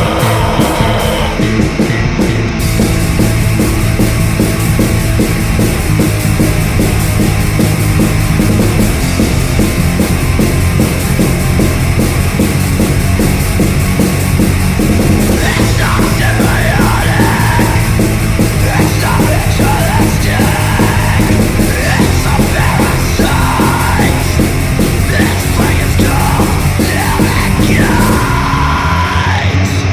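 Loud, aggressive punk rock music with distorted guitar, bass and drums. Yelled vocals come in about halfway through.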